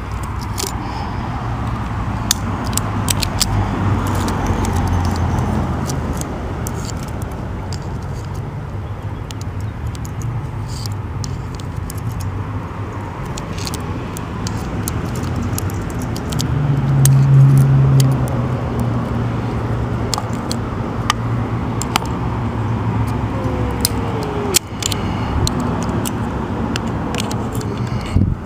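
Light metal clicks and clinks of small hand tools picking and prying at a double-cylinder gate lock's retaining clip. Underneath runs a steady low traffic rumble that swells briefly a little past the middle, as a vehicle passes.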